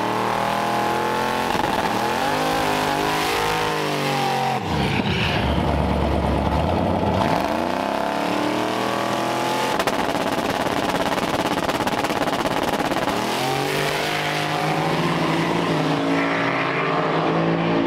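Turbocharged drag-racing pickup's engine revving up and down in sweeps at the starting line, then the truck and the car beside it launching and running off down the strip. Engine revs rise and fall again near the end.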